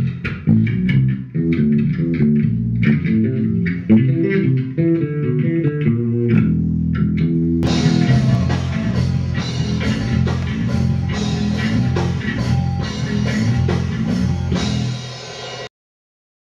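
Rock band music: an electric bass guitar plays a stepping line with little above it, then about eight seconds in the full band comes in with drums and guitar. The music cuts off suddenly shortly before the end.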